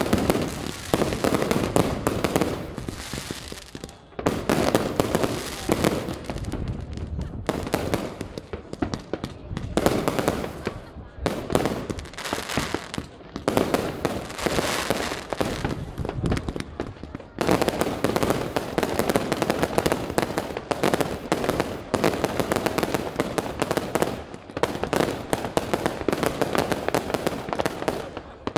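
Fireworks display: a dense, nearly unbroken stream of bangs and crackling from bursting shells, with only brief lulls.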